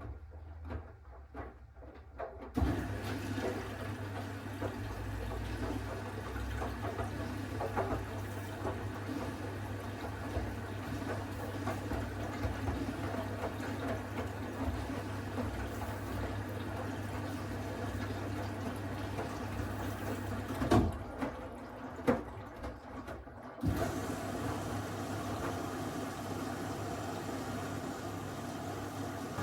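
Miele W1 Active WCA 030 washing machine with water rushing through it over a steady electric hum, typical of its inlet valve or drain pump. The sound starts suddenly about two and a half seconds in, drops out for about two seconds near the end after a couple of clicks, then starts again.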